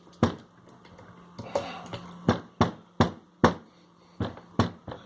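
Universal valve spring compressor knocking against a small-block Chevy cylinder head and valve spring as it is worked off: a run of about seven sharp knocks, mostly in the second half.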